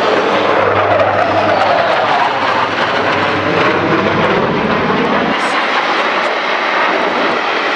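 F-35 fighter jet flying past, its single turbofan engine a loud, steady roar whose pitch falls over the first couple of seconds as it goes by.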